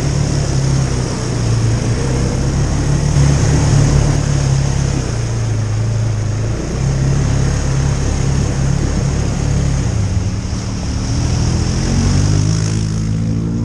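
Vehicle engine running steadily, fresh from a Wiseco piston rebuild, its pitch stepping up and down with the throttle a few times and rising near the end.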